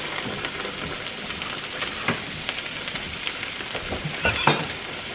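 Food frying in pans on the stove: a steady sizzle full of small crackles, with a few soft utensil knocks.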